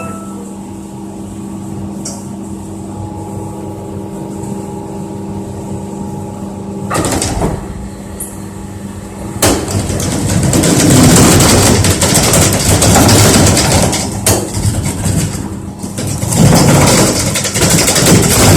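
Drum dryer machinery at a pellet plant running with a steady humming drone. From about ten seconds in it becomes a much louder, even rumbling noise that holds to the end.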